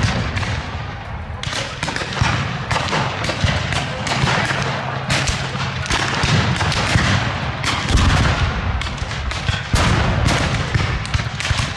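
Black-powder guns firing blanks in a ragged, continuous run of shots: sharp cracks about one or two a second, some overlapping, each with an echoing tail.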